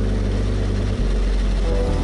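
Kawasaki ZX-6R 636 inline-four sport-bike engine running steadily under way, with wind noise. About a second in there is a brief dip as the engine note shifts.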